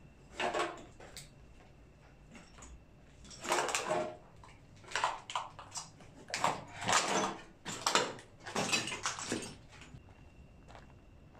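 Footsteps scuffing and crunching on a gritty, debris-strewn floor, coming in irregular bursts.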